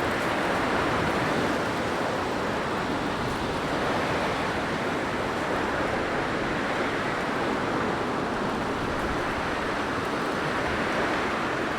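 Blizzard wind blowing steadily, a dense rushing noise that swells and eases gently every few seconds.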